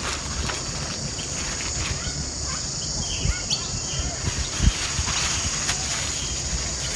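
Steady high insect buzz of crickets with a few bird chirps, over the crinkle and knock of hands working plastic food wrapping on a steel table, with a light knock about four and a half seconds in.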